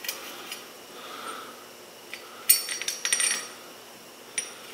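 Loose steel parts clinking against each other as they are handled: a cluster of sharp metallic clinks with a short ring about halfway through, and another clink near the end.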